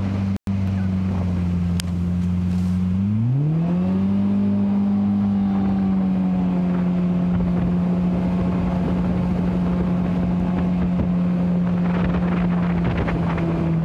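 Mercury outboard jet engine pushing an aluminium jon boat at speed. About three seconds in the throttle opens and the engine pitch rises smoothly, then holds steady at the higher speed, easing slightly near the end.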